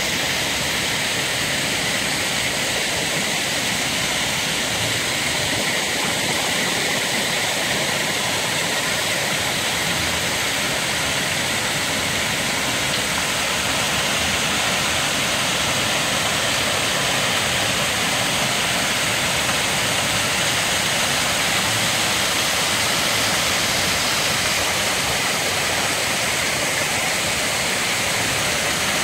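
Garden pond waterfall and its stream: a steady rush of falling and running water.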